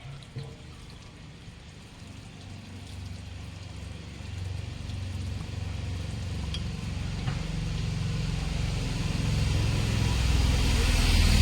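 A vehicle engine running with a low rumble that grows steadily louder, after a single click near the start.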